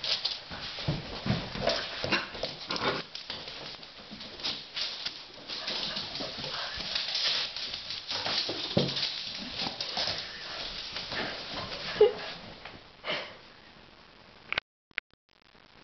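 A puppy playing with a broom: the bristles scrape and brush over the rug and wooden floor, with short pitched growls and yips from the puppy and knocks of the broom.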